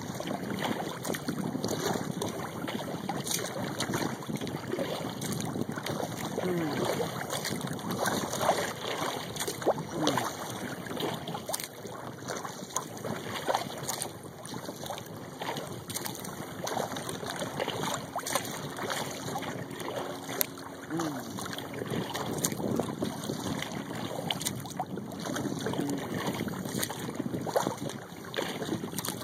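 Lake water lapping, trickling and dripping around a kayak's hull, with frequent small splashes, plinks and knocks.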